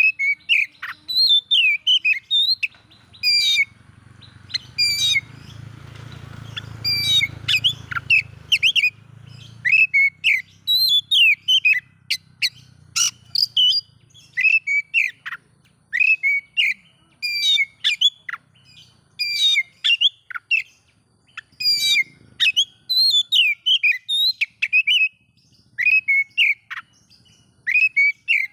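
Oriental magpie-robin (kacer) singing in quick, varied runs of short sharp chirps and whistled notes that drop in pitch, repeating one after another without a break. A faint low hum lies underneath in the first third.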